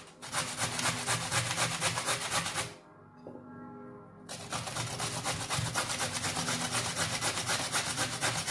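Carrot being grated on the fine side of a hand grater: quick, rhythmic rasping strokes, pausing for a moment about three seconds in before starting again.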